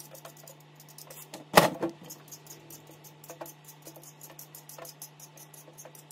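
A single sharp knock with a short ringing tail about a second and a half in, over faint, fast, even ticking and a low steady hum.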